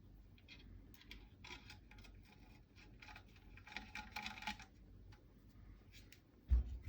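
Light metallic clicks and clinks of small screws and a Torx driver being handled and turned, in short clusters. A single dull thump near the end.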